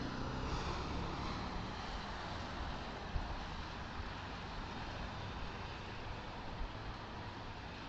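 Steady rumble of heavy truck engines and slow traffic heard from inside a car, with hiss from the wet road; it is a little louder in the first second or two.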